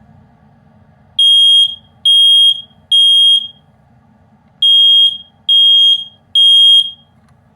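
Kidde i9030 ionization smoke alarm sounding under test: a loud, high-pitched beep three times, a short pause, then three more beeps. This is the temporal-three alarm pattern.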